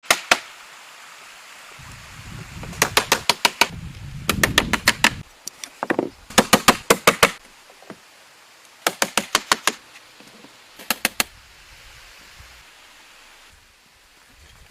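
Sharp knocks in quick bursts of about five to seven strikes each, repeated five times, with a low rumble under the first two bursts.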